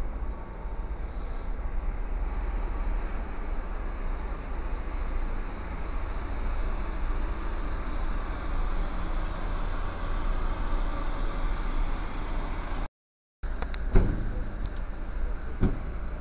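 Diesel intercity coach driving slowly past at close range: a steady low engine rumble with road noise. Near the end the sound cuts out for about half a second, then two sharp knocks follow.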